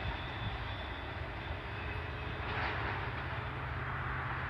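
CN freight train rolling along the track some distance off: a steady low rumble with a rushing noise over it.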